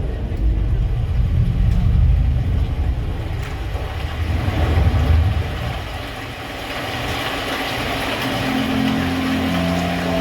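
Deep vehicle engine rumble that eases after about five seconds into a hissing wash, with held musical notes coming in near the end.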